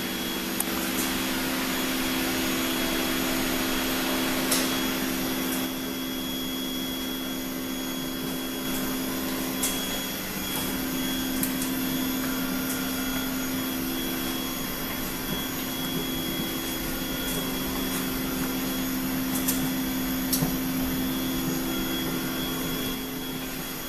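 Steady whir of a cone calorimeter's exhaust blower running, with a steady low hum under it and a few faint clicks. The hiss is fuller for the first five seconds or so, then settles.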